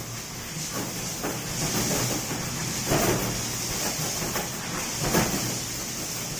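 Small motorised sand hoist running steadily with a high hiss, with irregular metallic clunks and knocks from the lifting gear about every one to two seconds.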